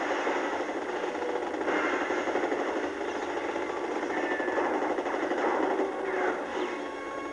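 Action-film soundtrack of continuous rapid automatic gunfire with explosion noise. It is played through a television speaker, so it sounds thin, with almost no bass.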